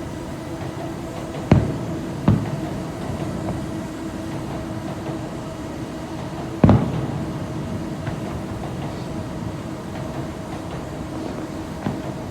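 Fireworks shells bursting: three sharp booms, two close together near the start and a louder one about halfway, each trailing off in an echo, over a steady droning hum.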